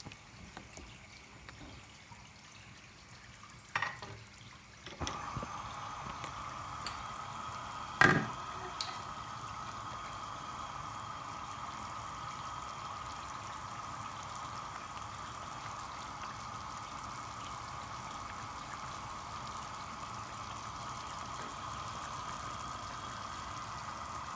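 A pan of lamb, cabbage and potato stew boiling hard: a steady bubbling hiss that starts suddenly about five seconds in, after a few quiet seconds with a light tap. A sharp knock comes about eight seconds in.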